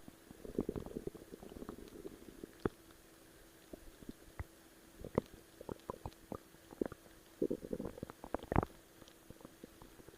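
Stomach gurgling and rumbling: patches of low bubbling about half a second in and again around seven and a half seconds, with scattered sharp pops and squelches, the loudest about eight and a half seconds in, over a faint steady hum.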